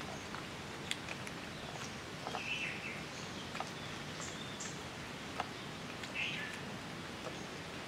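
Kittens licking and chewing raw fish off a plastic tray: faint scattered wet clicks over a steady background hiss, with short high chirps about two and a half seconds in and again near six seconds.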